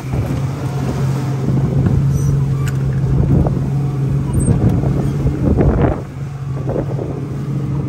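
A boat's motor running steadily at a constant low pitch, with wind gusting on the microphone.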